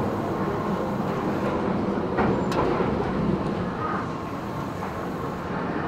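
Tobu 10030 series field-chopper electric train running, heard from inside the passenger car: a steady rumble of wheels on rail, with two sharp clicks about two seconds in.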